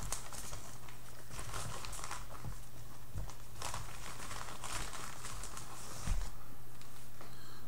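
Plastic marshmallow bag crinkling irregularly as a hand rummages in it, with a low thump about six seconds in.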